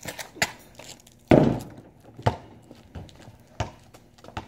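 A basketball thumping on a concrete driveway: several separate bounces about a second apart, the loudest and heaviest about a second in.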